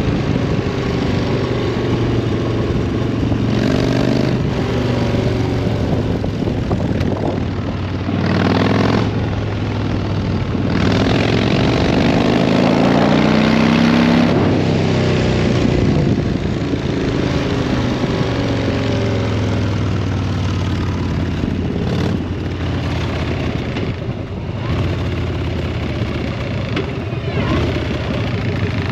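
Harley-Davidson V-twin motorcycle engine running and revving, its pitch climbing and falling again, loudest about halfway through.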